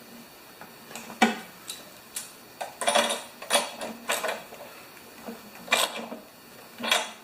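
Metal tools and small engine parts clinking and knocking as a lawn mower engine is reassembled: a string of separate clatters and one sharp knock a little over a second in.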